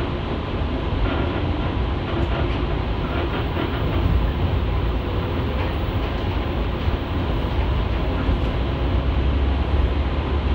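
JNR 115-series electric train running along the line, a steady rumble of wheels on rail heard from inside the car, with a few faint clicks.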